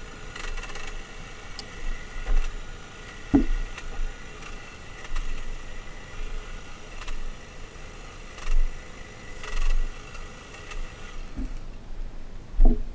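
Makita DUN461WZ 18-volt cordless long-reach hedge trimmer running with a steady motor whine as it cuts into stems too thick for it to handle well. A couple of knocks come through. The motor cuts off about eleven seconds in.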